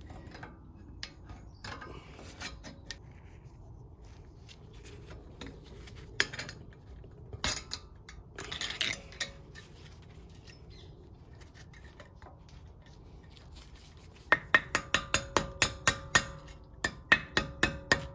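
A screwdriver and the steel anti-rattle spring clinking and scraping against a front brake caliper as the spring is levered back into place. The sounds start as scattered clinks and scrapes, then become a quick run of about a dozen sharp metallic clicks near the end.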